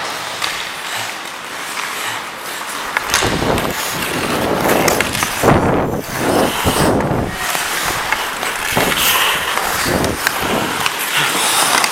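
Ice hockey skates scraping and carving the ice in hard strides, growing loud from about three seconds in, with wind rushing over the body-worn camera's microphone and a few sharp clicks.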